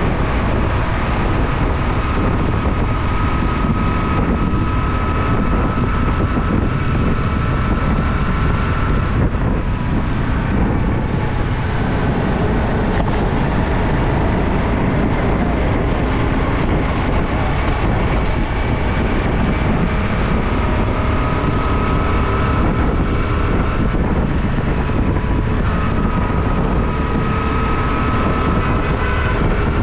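Motorcycle riding along a city road: steady, unbroken engine, tyre and wind noise, with faint whining tones from other traffic drifting in and out.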